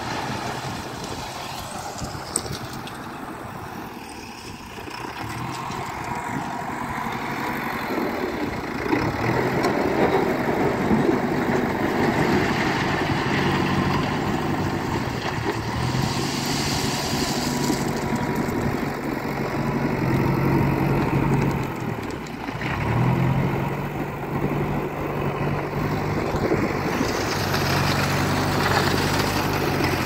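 JCB 3DX backhoe loader's diesel engine working under load, its note climbing to a higher, steady rev about a third of the way in and dropping briefly about three quarters of the way through.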